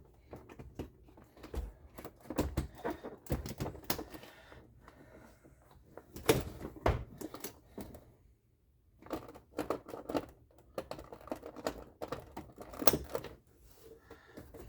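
Irregular clicks and knocks of plastic parts being handled as a car door panel is put back on and its connectors plugged in, with a brief pause about eight seconds in.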